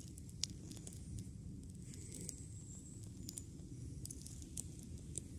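Small fire of birch bark and resin-rich fatwood shavings burning, giving a few faint, sharp crackles over a low steady rumble.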